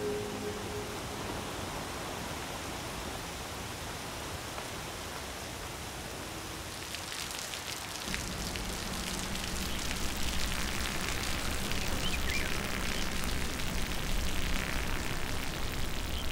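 Rain falling and dripping on rock: a steady hiss, with the patter of individual drops growing more distinct from about seven seconds in, joined by a low rumble about a second later.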